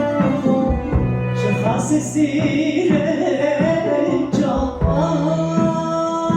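A small band playing, with a singing voice, melody instruments and drum hits that keep a steady beat.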